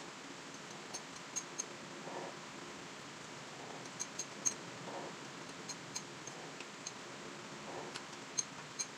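Metal spoon lightly clinking against a ceramic bowl in short, irregular ticks as a hot coconut-milk dessert is stirred to cool it. A soft low sound comes back about every three seconds.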